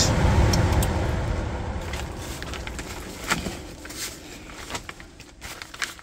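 Furnace blower fan winding down after the door safety switch is released and cuts power: a steady whir that fades away over about five seconds, with a few light clicks along the way.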